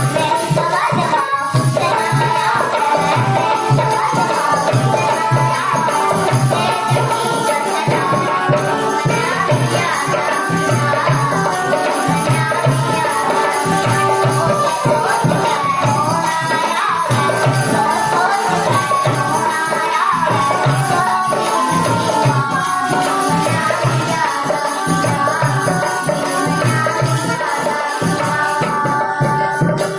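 Indian folk music with a steady hand-drum beat and jingling percussion running under a melody.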